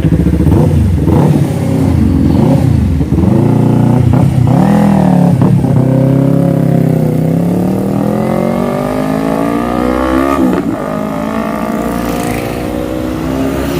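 Yamaha R3 parallel-twin motorcycle engine through an aftermarket slip-on muffler. Its pitch swings up and down for the first few seconds, then climbs steadily as it accelerates. The pitch drops sharply about ten seconds in, like a gear change, and the engine runs on lower and fainter after that.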